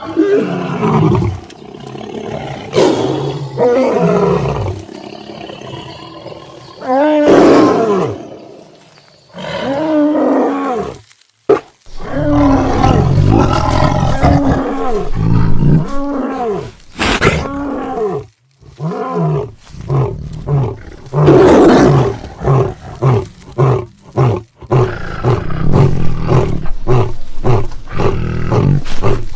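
Large animal roaring: long calls that bend in pitch, then a run of short grunting calls at about two a second in the second half.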